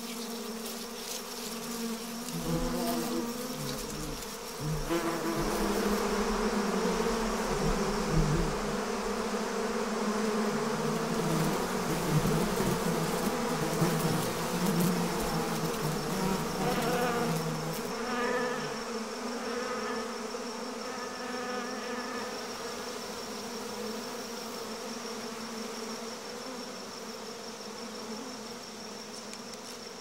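A swarm of bees buzzing in flight, a dense hum that swells from about five seconds in and eases after the middle. A steady high insect whine runs under it, and a few short chirping trills come about two-thirds through.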